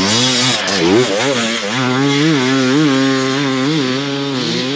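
Enduro dirt bike engine revving, its pitch rising and falling with repeated blips of the throttle, about two a second in the middle stretch.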